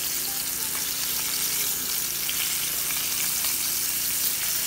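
Flour-dredged fish steaks sizzling steadily in hot oil in a large pan, with small crackles and ticks as a spoon bastes them.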